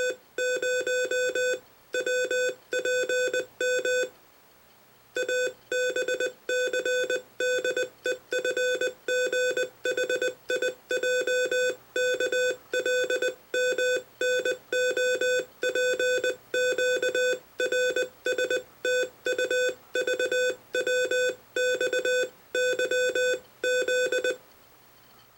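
International Morse code sent at 20 words per minute: a single steady mid-pitched beeping tone keyed on and off in dots and dashes, with a longer break of about a second just after four seconds in.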